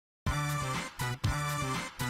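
Opening music: a run of held chords starting about a quarter second in, broken by brief gaps about a second in and near the end.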